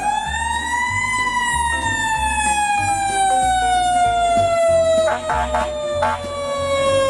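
Fire engine siren rising to a high wail about a second in, then falling slowly and steadily in pitch.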